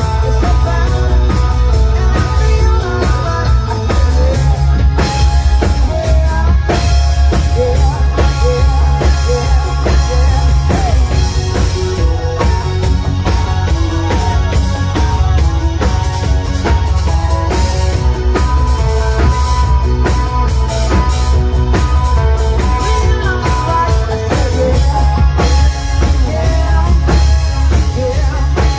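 Rock band playing loud, with a full drum kit, guitar and bass.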